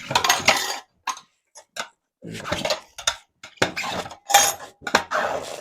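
Tire irons clinking and scraping against a motorcycle wheel rim as the tire bead is levered off, in several irregular bursts of metal clicks and scrapes with short pauses between.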